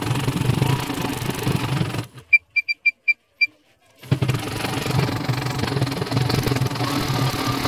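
CNY portable embroidery machine stitching a design, its needle mechanism running with a steady, even drone. About two seconds in the running stops briefly and six short high electronic beeps sound in quick succession, then the stitching starts again.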